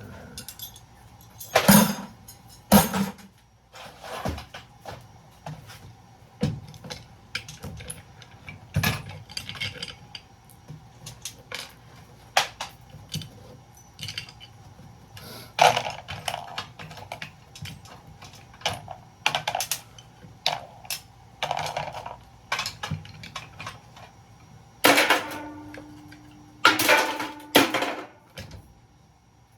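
Small metal and plastic breaker parts clinking, clanking and being knocked about by hand as a circuit breaker is pulled apart and its copper sorted out, a string of sharp irregular knocks and rattles. Near the end a short steady hum runs for a couple of seconds under the knocks.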